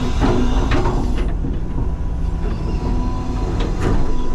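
CAT 323 excavator's diesel engine running, heard from inside the cab, with a steady whine through the middle and a few sharp knocks.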